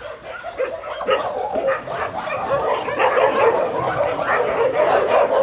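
Many dogs barking and yelping at once in a dense, overlapping chorus, growing louder over the first couple of seconds and then holding steady.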